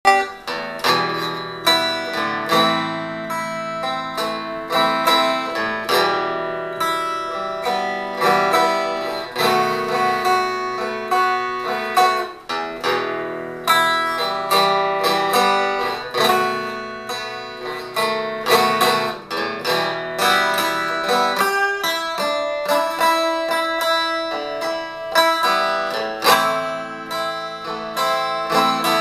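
Ibanez acoustic guitar converted to a resonator with a roasting pan and a 1964 Rambler hubcap, fingerpicked in a continuous run of picked notes that ring on, played through a 5-watt tube amp built into a 1940 Philco radio.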